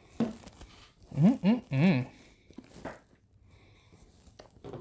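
A man's short wordless "mmm" hums while tasting bourbon: three brief voiced sounds with rising pitch, a little over a second in. A light knock sounds near the start as the tasting glass is set on the table.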